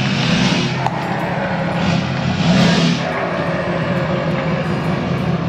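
Ford Super Duty pickup truck's engine running as the truck backs up slowly, swelling louder twice, about half a second in and around two and a half seconds in.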